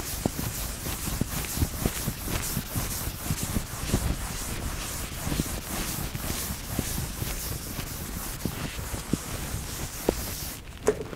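Chalkboard eraser rubbed back and forth across a blackboard in quick repeated strokes with light knocks, stopping shortly before the end.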